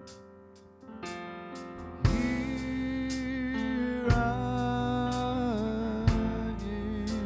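Church praise band playing a slow instrumental introduction: soft keyboard and guitar at first, then about two seconds in the band comes in louder with sustained chords and a low beat about every two seconds.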